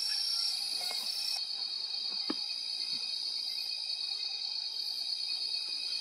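A cricket-like night insect trilling steadily at a high pitch, a fast, even, buzzing song. A single soft knock comes a little over two seconds in.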